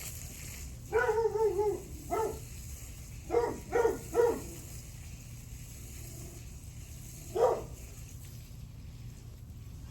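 A dog barking: first a drawn-out, wavering bark, then a single short bark, three quick barks in a row, and one last bark a few seconds later.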